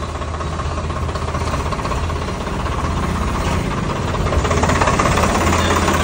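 Tractor's diesel engine running steadily, getting louder about four seconds in.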